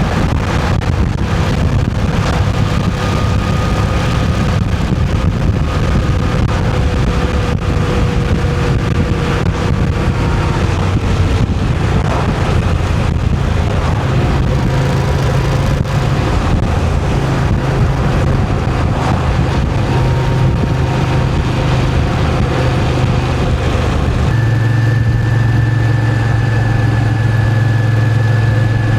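Moto Guzzi V7's air-cooled transverse V-twin engine running, its note shifting slightly before settling into a steady one about three-quarters of the way through.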